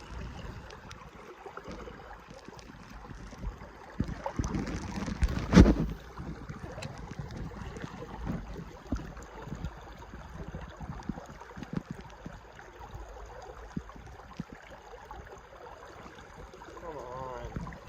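Stream water flowing, with wind rumbling on the microphone and irregular knocks and thumps, the loudest cluster about four to six seconds in.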